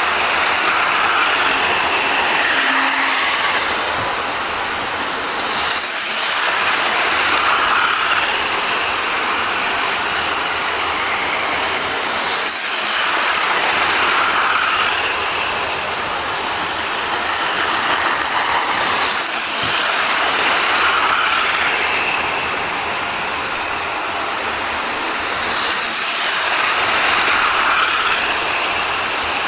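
00 gauge model trains running on track laid on carpet: a steady electric whir of the small motors and wheels that swells and fades about every six seconds as trains go past close by, with a short click roughly every six to seven seconds.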